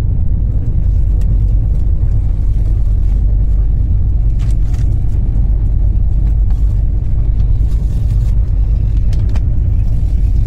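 Steady low rumble of a moving passenger train, heard from inside the coach. A few faint rustles and clicks come from plastic bags being unpacked.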